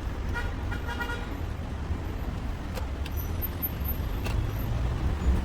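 Road traffic rumbling steadily, with a car horn giving a few short toots about half a second in.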